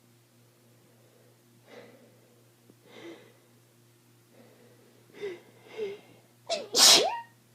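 A person with a cold: a few faint breaths, then two sharp catching breaths as the sneeze builds, and one loud sneeze near the end.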